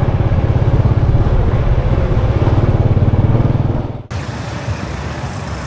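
Motor scooter's small engine running at low speed in slow traffic, a steady fast low pulsing. About four seconds in it cuts off suddenly, leaving quieter street background noise.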